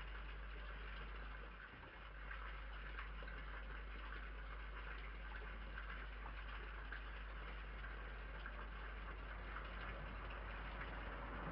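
Steady low-level hiss over a constant deep hum, the background noise of a security camera's microphone, with no distinct event standing out.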